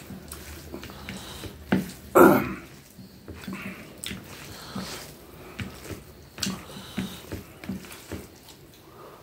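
Eating by hand: fingers squishing and mixing rice with chicken curry on a plate, amid wet chewing and lip-smacking sounds, with one louder wet sound about two seconds in.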